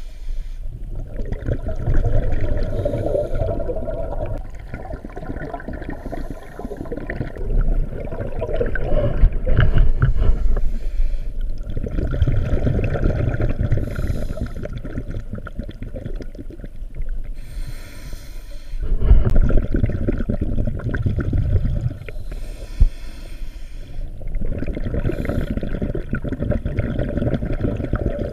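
A scuba diver breathing through a regulator underwater: exhaled air bubbling out in long, rumbling bursts every few seconds, with shorter hisses of inhalation between them.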